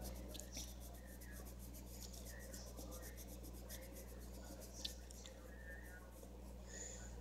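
Coloured pencil scratching on paper in short, repeated strokes, with one sharper tick about five seconds in. A steady low hum runs underneath.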